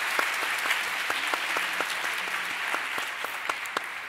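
Audience applause, dense clapping that thins out and fades near the end.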